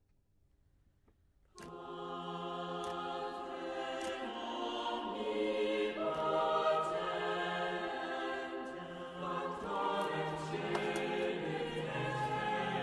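Near silence, then about a second and a half in, background music with a choir singing sustained chords starts suddenly, with faint clicks over it.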